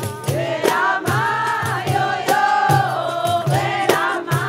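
Voices singing together in a chant-like song over hand drums and a tambourine beating a steady rhythm.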